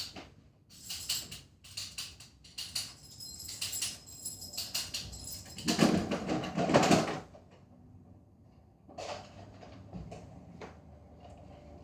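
Handling noises: a run of small clicks and rustles, then a louder scuffling burst lasting about a second and a half about six seconds in, and a few fainter clicks after.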